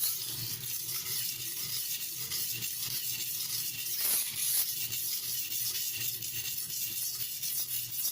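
Kitchen knife blade rubbed back and forth on a wet silicon carbide sharpening stone under light pressure: a steady, gritty scraping hiss.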